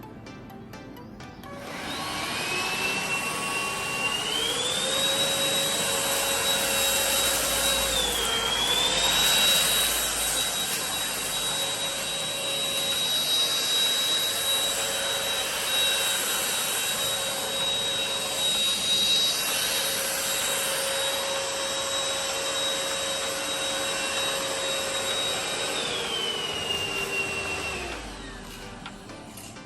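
Tefal X-Nano cordless stick vacuum cleaner running. Its motor whine steps up in pitch a few seconds in as boost is switched on, dips and recovers once, then drops back to normal power before the motor switches off near the end. The boost only runs while its button is held down.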